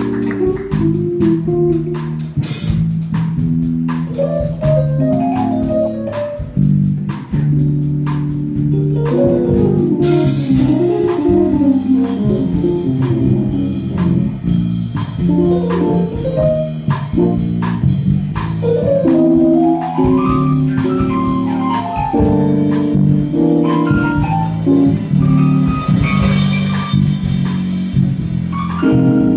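Jazz band playing live: keyboard, bass, guitar and drum kit, with quick melodic runs rising and falling over sustained chords and a steady beat.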